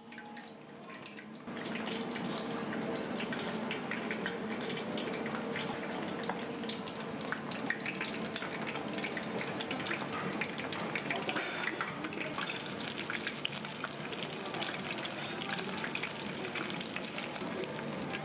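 Breaded kushikatsu skewers deep-frying in a tabletop fryer pot of hot oil: a steady, dense crackling sizzle that starts about a second and a half in.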